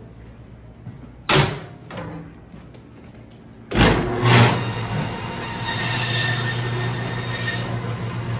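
A heavy thump about a second in as a bone-in beef loin is set on a meat band saw's steel table; then, about four seconds in, the band saw starts suddenly and runs steadily, its motor humming and blade whirring as it cuts through the loin into T-bone steaks.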